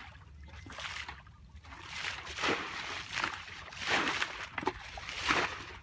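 Muddy pond water being bailed out by hand with a bucket and a bowl: a run of uneven scooping sloshes and pours, growing louder and closer together from about two seconds in.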